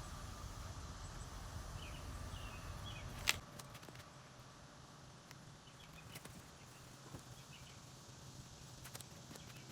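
Faint background sound: a low hum that stops with a sharp click about three seconds in, and a few faint, scattered bird chirps.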